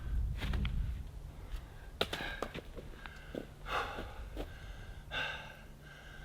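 A person breathing in short, audible puffs about once every second and a half, with a few light clicks and a faint steady hum underneath.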